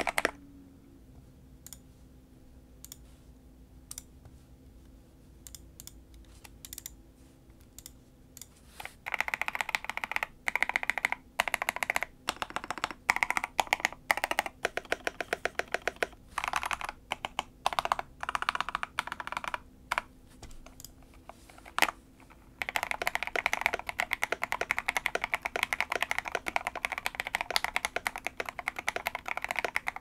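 Typing on an Ikki68 Aurora mechanical keyboard with MT3-profile keycaps and lubed, filmed Gateron Black Ink v2 linear switches, in a polycarbonate case with aluminium plate, PE foam and tape mod. For the first nine seconds or so there are only sparse single keystrokes, then short uneven bursts of keystrokes, then steady fast typing from about three-quarters of the way in.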